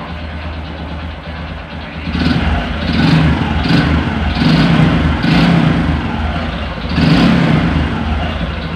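Honda Supra 125's single-cylinder four-stroke engine idling, then revved in a series of about six short throttle blips. It carries the rough noise that the mechanic puts down to a worn connecting rod and its bearing, needing an engine teardown.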